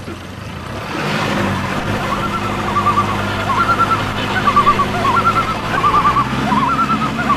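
An engine running steadily, picking up a little about a second in, with short bursts of quick high chirps repeating over it.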